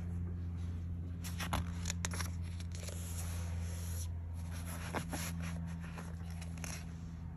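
A book page being turned by hand: a short burst of paper rustling and crackling about a second in, then a few lighter handling rustles, over a steady low hum.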